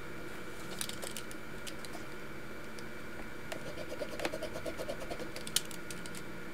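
Pen tip scratching on paper in a run of short, quick strokes from about three and a half seconds in, with a sharp tick near the end. Before that come a few light ticks and scratches as the sheet is handled. A steady hiss runs underneath.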